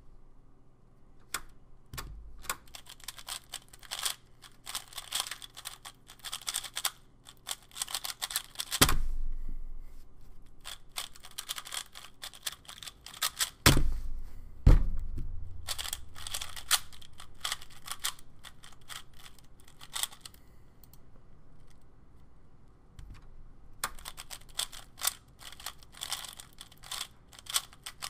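Cubicle Labs Valk M speedcube being turned at full speed: bursts of fast plastic clicking and clacking several seconds long, one for each solve. A few loud thumps, about 9 and 14 seconds in, come as the cube is put down and the timer stopped.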